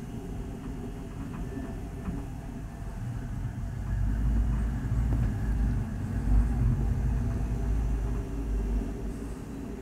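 Small aerial cable car running into its upper station: a steady low rumble from the cabin's carriage rolling along the track rope, growing louder from about four seconds in as it slows to a stop.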